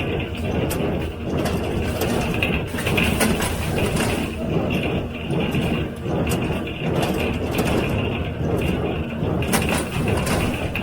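John Deere 348 square baler with its #42 pan kicker ejector running in the field: a steady mechanical drone with repeated sharp clacks from the working baler.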